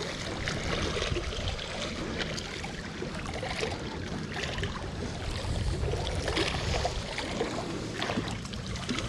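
Wind rumbling on the microphone, with water lapping at the lake's edge and a few faint ticks from handling the rod.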